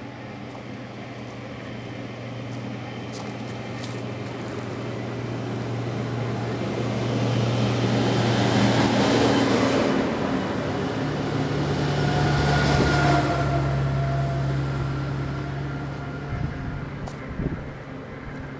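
Road traffic passing close by: vehicles swell up and fade away, loudest about nine seconds in and again around thirteen seconds, over a low engine hum.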